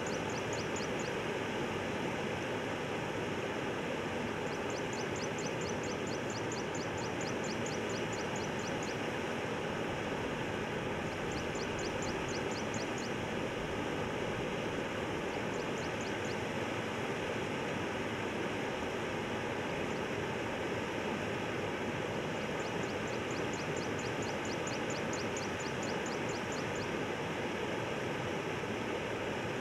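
Water running over a low river causeway, a steady rushing. Over it come bouts of rapid high ticking, about five ticks a second, that start and stop every few seconds.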